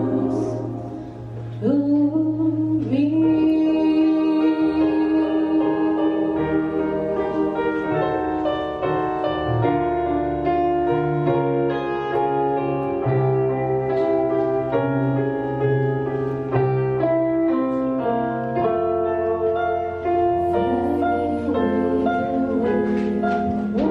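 Women's choir singing live, accompanied by keyboard and a small band.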